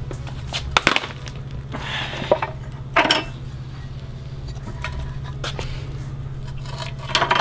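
Metal clinks and clanks from a car's rear strut assembly being taken apart by hand, with its top nut, mount and spring compressor knocking together on a concrete floor. There are a few sharp clanks, the first about a second in, one about three seconds in and one near the end, over a steady low hum.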